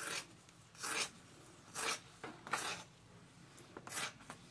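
Sharp scissors cutting through excess carbon fibre cloth: about five short cuts, roughly a second apart.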